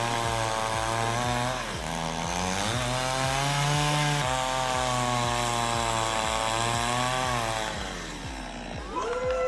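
Two-stroke chainsaw engine running at a steady high speed, revving higher about two and a half seconds in, then easing off and dropping in pitch near the end.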